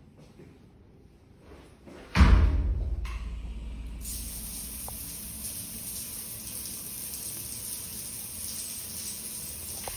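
Shower turned on with a sudden gush about two seconds in, then water spraying down steadily.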